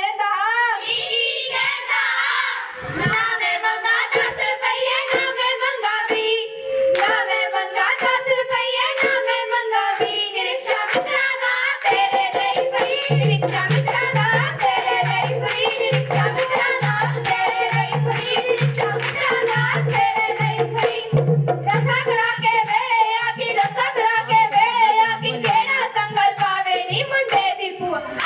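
A group of girls singing Punjabi folk boliyan for giddha, with rhythmic hand clapping. About halfway through, a steady drum beat joins in.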